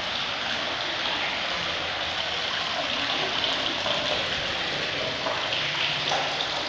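Water running steadily from the sacred spring's taps into a marble trough, a continuous even splash.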